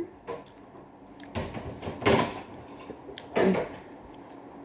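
Someone eating by hand: four short, soft clicks and smacks of chewing and of fingers picking at food on a plate, the loudest about two seconds in.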